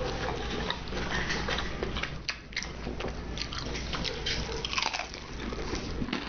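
A person chewing a mouthful of food, with irregular, quick smacking and crunching clicks.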